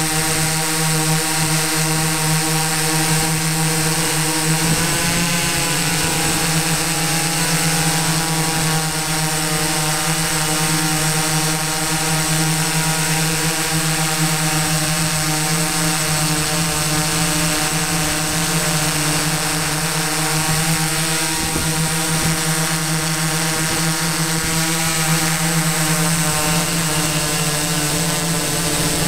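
Drone's electric motors and propellers running steadily in flight, a constant hum with a strong low tone and many overtones over a noisy whoosh. There is a brief waver in pitch about five seconds in.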